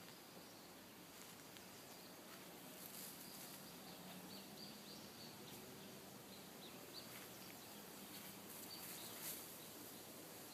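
Faint outdoor background hiss with scattered faint, short high-pitched chirps.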